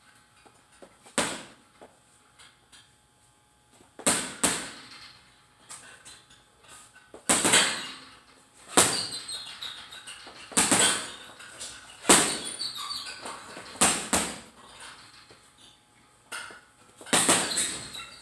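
Boxing gloves punching a leather heavy bag: sharp smacks every second or two, some in quick pairs, each with a short fading tail.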